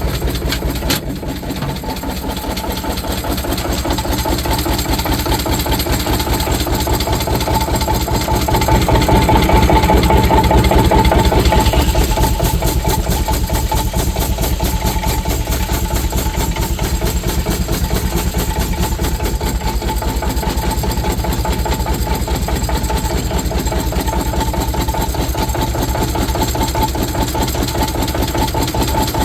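Steam engine running steadily, driving a sawmill, with an even rhythmic beat and a steady mid-pitched tone over it; the sound grows louder for a few seconds about eight to twelve seconds in.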